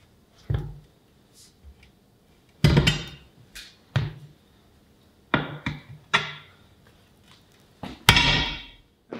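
A steel tire bar clanking against a steel truck rim as the bead of a heavy drive tire is pried over the rim by hand. About half a dozen sharp metallic knocks with some ringing, the loudest about three seconds in and near the end.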